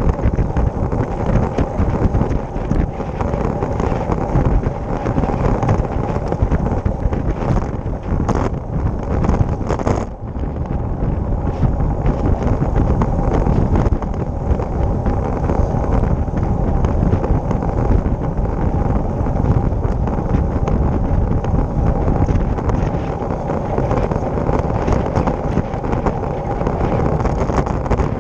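Steady wind rush buffeting the microphone of a camera mounted on a road bike riding at speed, mixed with the bike's own tyre and road noise. The noise dips briefly about ten seconds in.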